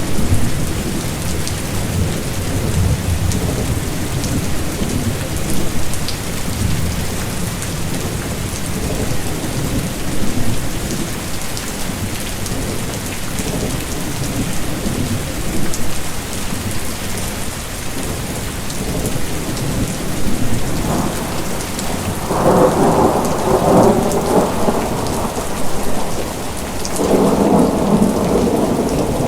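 Steady heavy rain with rolling thunder; the thunder swells twice in the last third, the two rolls a few seconds apart.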